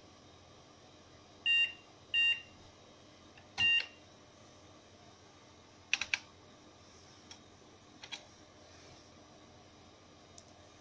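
The 286 PC's internal speaker gives three short beeps, the last a little longer and preceded by a soft thump, followed a couple of seconds later by quick sharp keyboard key clicks, three together and then two more.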